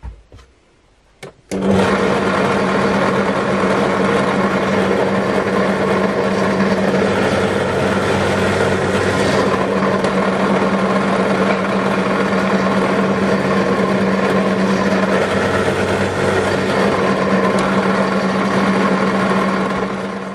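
Drill press motor starting about a second and a half in and running with a steady hum while it drills holes in a pine batten, then winding down near the end.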